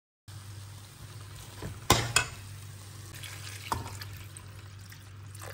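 A steel spoon stirring potatoes and peas frying in a steel kadhai, with a faint sizzle over a low steady hum. The spoon knocks sharply against the pan twice about two seconds in, and once more, softer, a little later.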